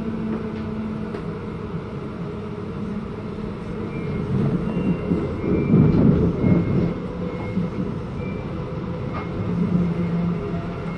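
Interior running noise of a Queensland Rail SMU electric multiple unit under way: a steady low rumble with a level hum, swelling louder for a couple of seconds in the middle, with a few faint short high tones.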